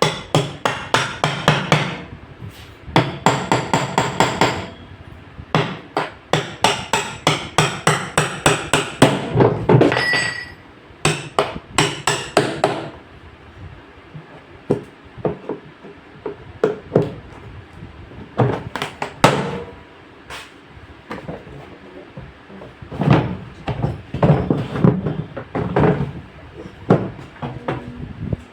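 Hammer blows in quick runs of about four or five strikes a second, broken by short pauses, thinning out to scattered strikes in the second half.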